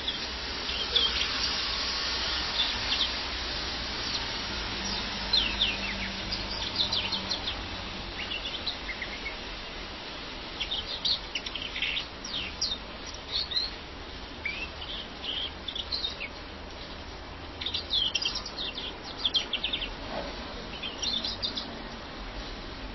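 European greenfinch singing: short bursts of quick chirps and trills, with pauses of a second or two between them.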